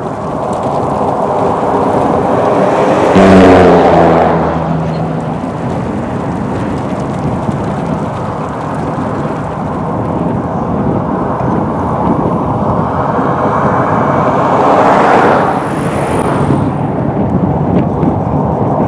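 Loud, steady storm noise of wind and rain, swelling twice, about three seconds in and again near the end.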